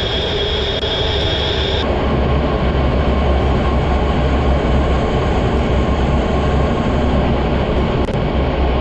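Jet aircraft engine running loud: a steady deep rumble and rush, with a high whine for about the first two seconds that then cuts off.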